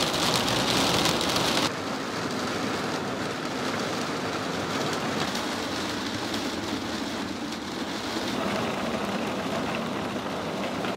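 Heavy rain pelting a sailboat, a steady hiss. About two seconds in it cuts to a softer, duller rain, heard from inside the cabin as it drums on the deck and windows.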